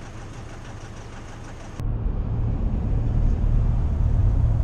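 Car driving, heard from inside the cabin: a steady low rumble of engine and road noise that starts abruptly about two seconds in, after a quieter stretch of faint outdoor background.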